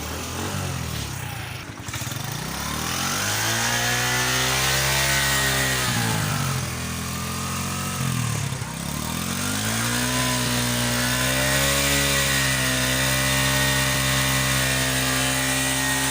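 Honda CD70's single-cylinder four-stroke engine being revved: the engine speed climbs and drops back twice, then holds steady at raised revs.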